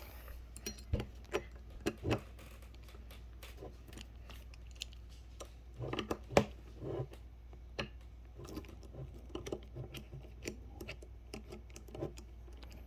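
Irregular small metal clicks and taps from handling a ratchet and tools while taking the ratchet apart, with a brief cluster of louder knocks about halfway through.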